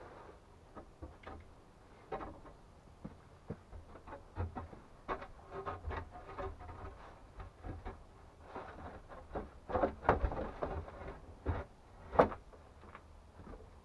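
Wooden boards being laid and shifted on a wooden bed frame: scattered knocks and scrapes of plank on plank, busiest a little past the middle, with one sharp knock near the end.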